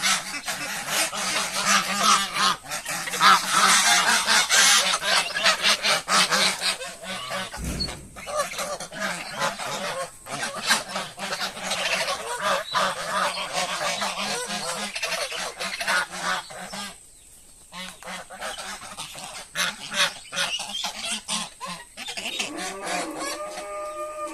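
Farmyard poultry calling, with many overlapping calls from a flock and a short lull about two-thirds of the way through.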